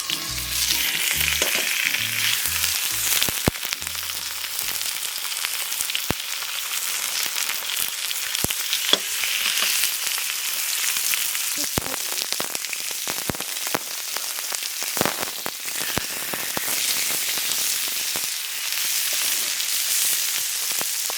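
Pork belly sizzling in a frying pan over a wood fire: a steady frying hiss with scattered sharp pops of spitting fat.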